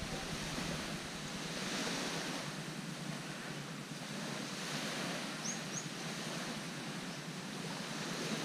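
Small waves washing onto a sandy beach: a steady hiss of surf that swells a little about two seconds in and eases off again.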